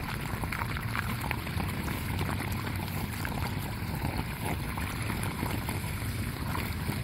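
Floodwater swirling down a street storm drain, a steady continuous rush of draining water; the drain has just been cleared of clogging debris and the flooded street is emptying through it.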